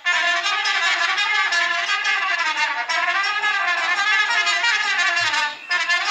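Small group of trumpets playing a lively, ornamented folk dance tune; the music breaks off for a moment near the end.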